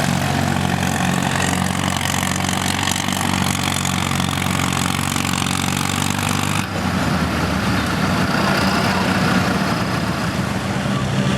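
Farm tractor engine running at a steady speed. About two-thirds of the way through, the sound cuts abruptly to another steady engine note.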